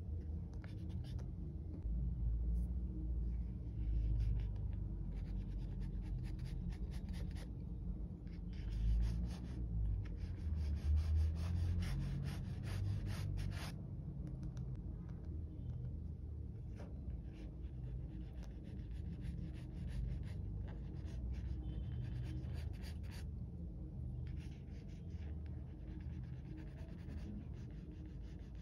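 Graphite pencil sketching on drawing paper: light scratchy strokes in runs of a second to several seconds with short pauses between, over a low rumble.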